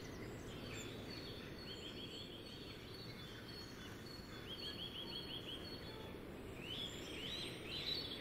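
Outdoor ambience: a steady low background rumble with small birds calling. They give runs of quick high chirps about two seconds in, again around the middle, and near the end.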